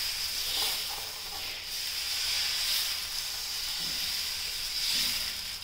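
Steady sizzling hiss of dosa batter cooking on a hot tawa while it is spread in a spiral with a steel ladle.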